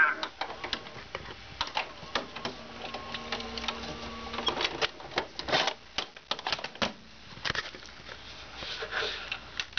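Irregular clicks and taps of a hand on the plastic front and buttons of an Orion CRT television.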